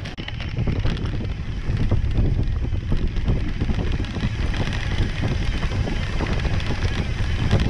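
Wind buffeting the microphone of a camera on a moving mountain bike, with many short knocks and rattles from the bike over a bumpy single-track trail.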